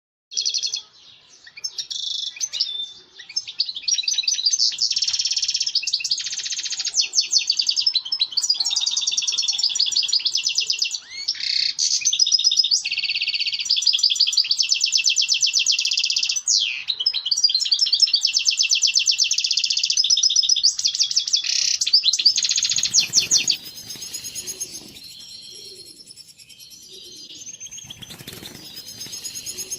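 European goldfinch singing its breeding-season courtship song, a long, near-unbroken run of fast liquid twitters and trills. About three-quarters of the way through the song drops to fainter twittering, mixed with some low rustling noise.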